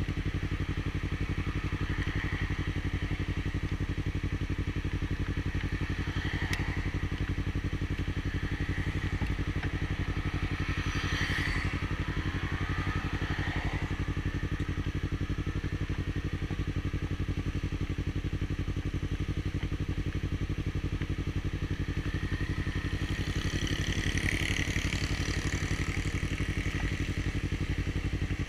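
Yamaha R3's parallel-twin engine running at a steady, unchanging speed, with no revving.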